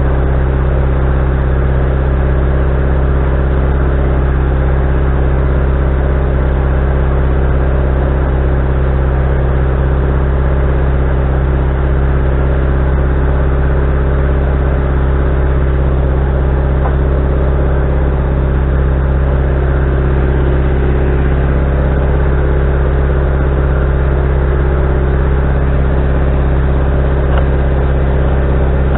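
Engine of a Wood-Mizer LT40HD sawmill running steadily at an even speed.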